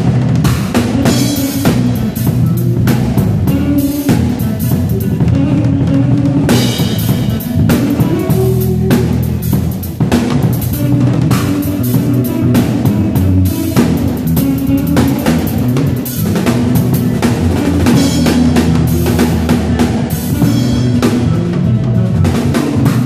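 A band playing: a drum kit with kick drum and snare keeping a steady beat, over pitched bass-heavy instruments.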